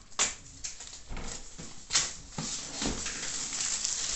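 Clear plastic shrink wrap being peeled and pulled off a laptop box, crinkling and crackling. Sharp crackles come near the start and about two seconds in, and the crinkling grows denser in the second half.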